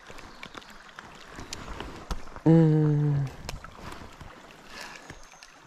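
Low, steady river and wading noise with scattered faint clicks. About two and a half seconds in, a man makes a short, loud wordless vocal sound held on one pitch for under a second.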